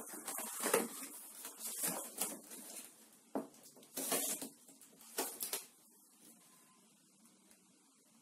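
Corrugated cardboard shipping box being sliced open with a utility knife and its flaps pulled back: a run of irregular scraping and crackling noises that stop after about five and a half seconds.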